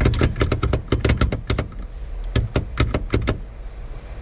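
Quick runs of sharp clicks and rattles, like small parts or tools being handled: about a dozen in the first second and a half, then a shorter run of about six after a brief pause.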